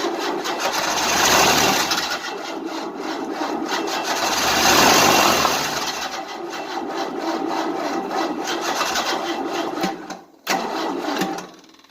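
Starter motor cranking the engine of a 1988 Tennant 255 Series II floor sweeper, primed with starting fluid, in a fast steady churn that swells louder twice without the engine catching to run; the cranking stops about ten seconds in, then starts again briefly.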